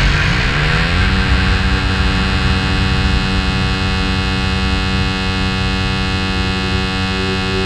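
A loud, steady electronic hum or drone of many held tones: in the first second the tones glide upward, then they hold level, and a further tone joins near the end.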